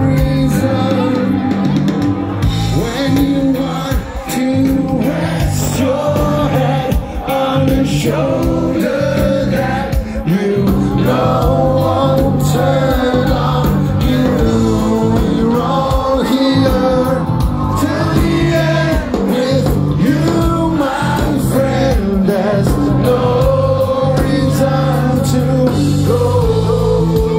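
Live rock band playing loud on an outdoor stage, with electric guitars, bass and drums behind a male singer's voice, heard through a PA from inside the crowd.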